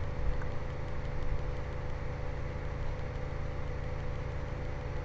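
Steady low background hum with a faint, thin steady tone above it, unchanging throughout.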